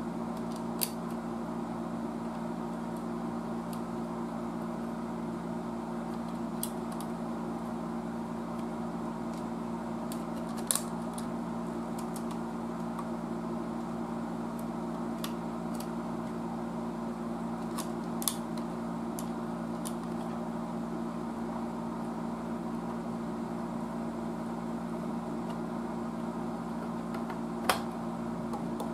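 Small metallic clicks from screws being handled and fitted into a tube tester's front panel, about half a dozen spread far apart, the sharpest near the end, over a steady low hum.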